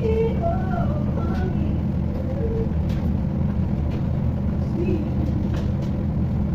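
A steady low rumble and hum, even in loudness, from a kitchen where a lidded pan is cooking on a gas stove, with faint short pitched sounds now and then above it.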